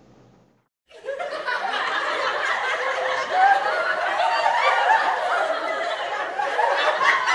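After about a second of near silence, a group of people laughing and giggling together, many voices overlapping.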